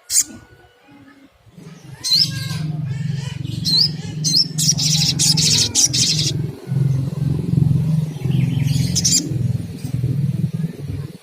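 Little spiderhunter (sogok ontong) calling in clusters of sharp, high chirps and trills, strongest in the first half. A loud, rough low hum with a fast flutter runs underneath most of the time.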